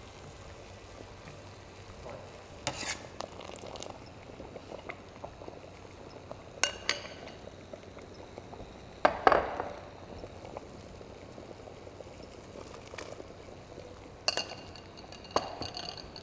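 Metal and glass clinking, a handful of sharp knocks with brief ringing, as florets are tipped from a glass bowl into a stainless steel pot of boiling salted water and scooped out with a mesh strainer. The loudest clink comes about nine seconds in, over a faint steady hiss from the pot.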